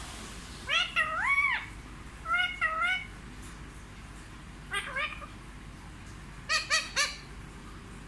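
Rose-ringed parakeet vocalising in four short bursts of high-pitched syllables that slide up and down in pitch, the talking parrot's imitation of words; the first burst is the longest.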